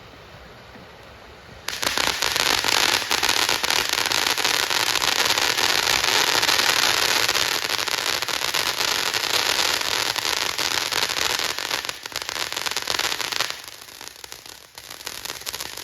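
Mini snow cone firework fountains, four burning together, ignite about two seconds in with a sudden loud, steady hissing, crackling spray. The spray holds for about twelve seconds, then drops off sharply, leaving a weaker fizz and crackle as they burn out.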